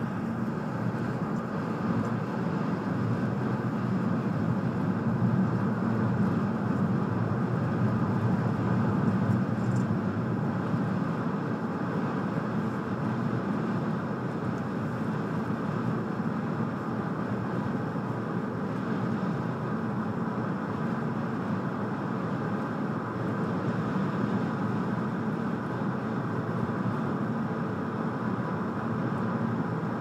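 Steady road noise inside a moving car: tyres and engine running without a break.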